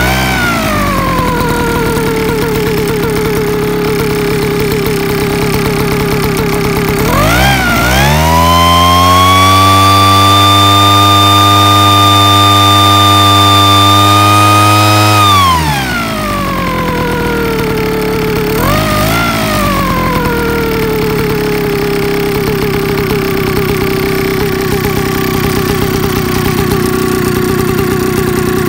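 Backpack rice-seed spreader's 63 cc Kawasaki engine and blower fan running just after a pull start. It settles to a steady idle, is throttled up to a high, steady speed with a whine about a quarter of the way in, drops back to idle just past halfway, gets one short blip of throttle, then idles on.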